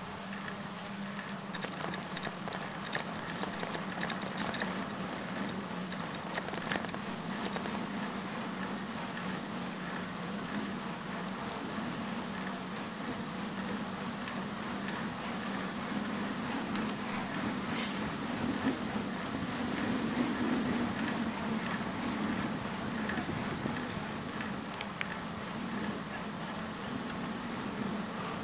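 Steady rolling noise of a bicycle riding along a paved trail, heard from the rider's own camera, with a few faint clicks and rattles.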